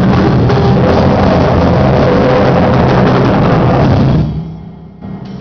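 Live rock band playing loud, with distorted guitar, drums and vocals, until the song ends about four seconds in; a low hum from the amplifiers rings on after the band stops.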